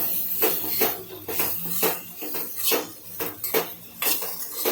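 Metal spoon knocking and scraping against a cooking pan in irregular strikes about two a second, as a dry potato bhaji is stirred and mixed with its spices.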